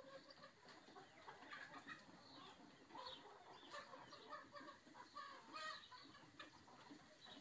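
Chickens clucking faintly, with other birds calling now and then.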